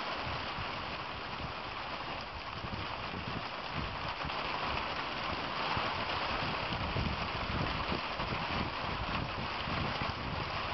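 Ice pellets (sleet) falling steadily on the ground and pavement, a continuous even hiss with no let-up.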